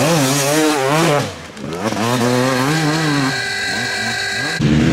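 Enduro motorcycle engines revving, their pitch rising and falling as the throttle is worked. The sound dips briefly about a second and a half in and changes abruptly near the end.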